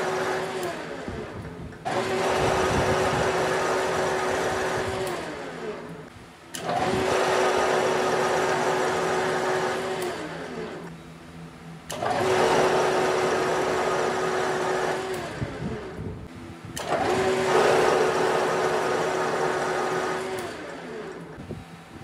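Metal lathe cutting a screw thread in repeated short passes: the spindle starts abruptly, runs steadily for about three to four seconds, then is switched off and coasts down with a falling pitch. This happens four times, starting again about every five seconds.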